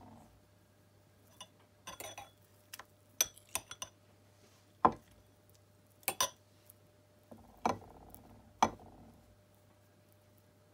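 Irregular sharp clinks and taps of a fork against a glass bowl of beaten egg and a ceramic tray as chicken nuggets are dipped and breaded by hand, about eight in all, the loudest about five seconds in.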